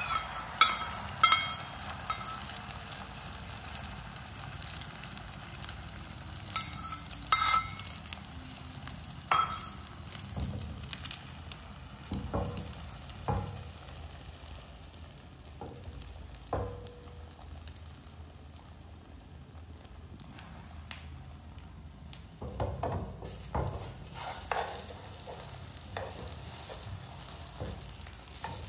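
Beaten egg sizzling in a hot non-stick frying pan as an omelette cooks, with a few ringing metal clinks in the first couple of seconds and again around seven seconds in. Near the end, a spatula scrapes and taps against the pan as the omelette is folded.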